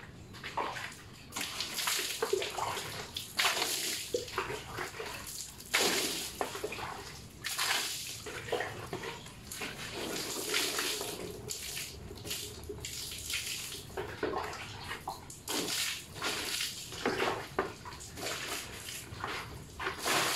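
Water scooped from a bucket and thrown over a motor scooter by hand, in repeated splashes that hit the bodywork and run off onto a tiled floor.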